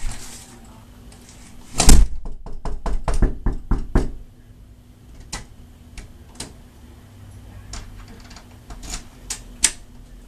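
Knocking on a front door: one loud bang about two seconds in, then a quick run of about a dozen knocks over the next two seconds, followed by a few scattered lighter taps and clicks.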